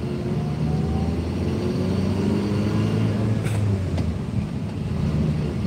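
Car engine and road noise heard from inside a moving car's cabin: a steady low drone that swells a little through the middle.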